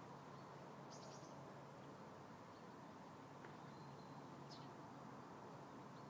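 Near-silent outdoor ambience: a steady faint hiss with a low hum underneath, and a few faint, brief high chirps, one about a second in and two more past the middle.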